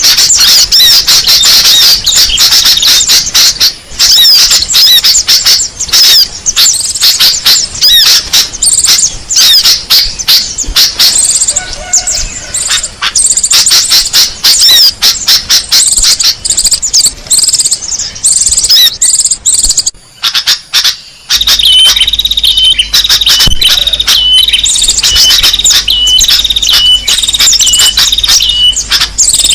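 Bird-lure recording of small songbirds: dense, rapid high chirps and twitters, loud and continuous. After a short break about two-thirds of the way through, a short high call repeats steadily over the chirping.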